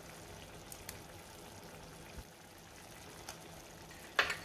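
Soft, steady bubbling of thick bhaji simmering in a nonstick pan, with a few faint ticks as a processed cheese cube is grated over it. Near the end comes one short, louder scrape.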